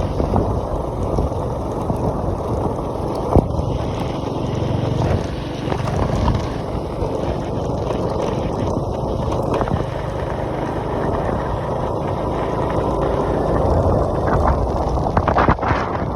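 Heavy diesel construction machinery running steadily, a dense low rumble that holds at about the same level throughout, with a sharp click about three seconds in.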